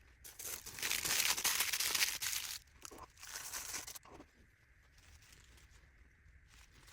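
Wrapping material being crinkled and handled in two bursts of close-up rustling, the first longer and louder, stopping about four seconds in.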